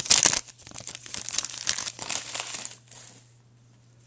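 Trading cards and their packaging being handled: a run of short crinkling, rustling bursts that die away after about three seconds, over a faint steady hum.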